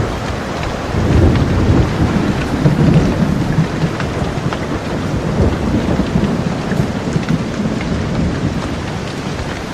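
Steady rain falling, with a long roll of thunder that rumbles in about a second in, is loudest over the next couple of seconds, then slowly dies away.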